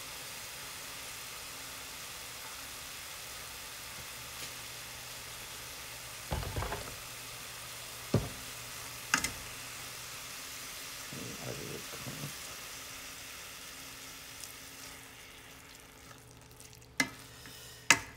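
Spinach, onions and peppers sizzling in a non-stick skillet with cream just added, a steady hiss that dies down over the last few seconds. A slotted spoon stirring the greens knocks sharply against the pan a few times.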